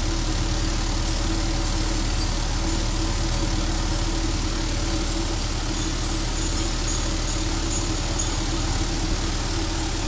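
Mr. Deburr vibratory tumbler running, ceramic triangle media churning and rattling around titanium knife handles and blades over a steady motor hum.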